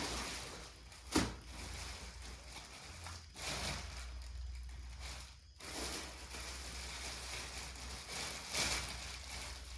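Faint rustling and crinkling of packaging and cloth as baby items are handled during unboxing, with a sharp click about a second in and a low hum underneath.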